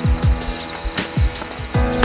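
Background music with a steady beat: deep booming bass drum hits about every half second under sustained synth chords.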